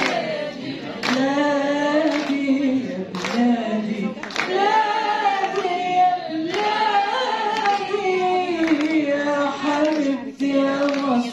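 A female opera singer sings an Arabic patriotic song unaccompanied into a handheld microphone, amplified through the hall's sound system. She holds long notes with a wide vibrato and takes brief breaths between phrases.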